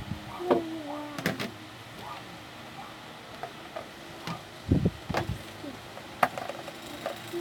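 Scattered sharp clicks and knocks from objects being handled, with a few low thumps around the middle. Near the start there is a short wordless vocal sound that falls in pitch.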